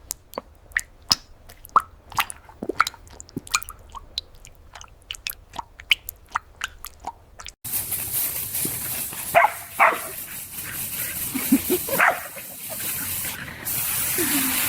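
Puppy sounds: many short sharp clicks and brief high yips and whimpers, then, after a sudden cut about halfway through, a few longer whines over a steady hiss.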